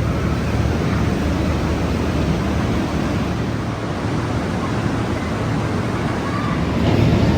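A steady rushing noise, even throughout and strongest in the low range.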